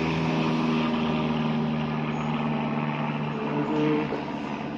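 A steady low mechanical hum over a broad rushing noise, easing slightly toward the end.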